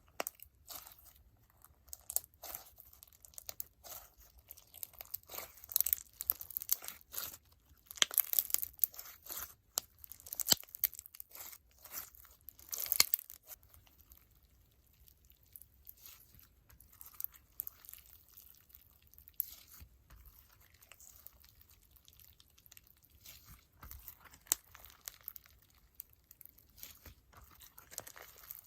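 Hands squeezing and pressing a crunch slime packed with foam beads and bingsu beads, giving rapid crackling and popping. The crackles are densest and loudest in the first half, then thin out and soften.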